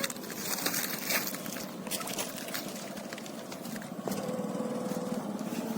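Small boat motor running steadily, with a few scattered clicks.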